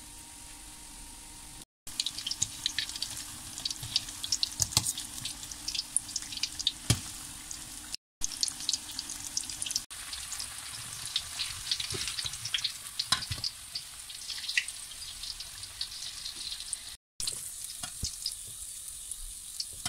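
Breadcrumb-coated chicken spring rolls deep-frying in hot oil: a steady sizzle thick with sharp crackling pops. The sound drops out for an instant three times.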